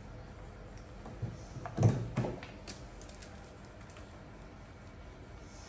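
Wicker basket knocked over onto a concrete floor: a few dull knocks, the loudest about two seconds in, followed by light clicks and rustling.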